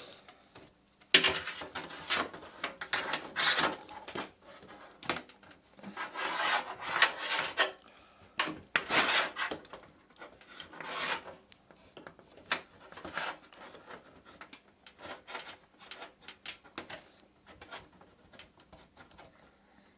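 Computer cables being pushed and routed through a PC case: irregular scraping and rubbing, busiest in the first half and fainter later on.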